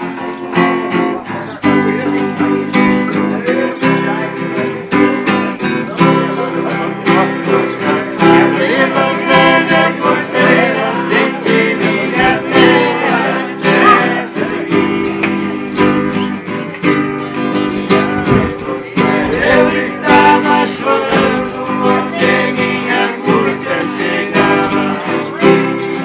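Two acoustic guitars strummed and picked together, with men's voices singing over them.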